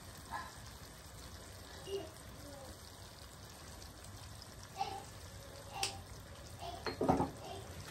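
Minced chicken simmering in sauce in a frying pan, a soft steady sizzle, with a few small knocks and a sharp click about six seconds in.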